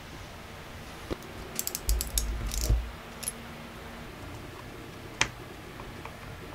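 A run of sharp clicks and light knocks about two seconds in, with single clicks a little later, from a hand crimping tool closing an insulated terminal onto a wire and tools being handled on a wooden bench.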